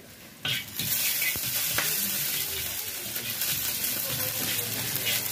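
Strips of buff (water buffalo) meat sizzling in hot oil in a wok while tongs turn them. The sizzle starts abruptly about half a second in and then holds steady.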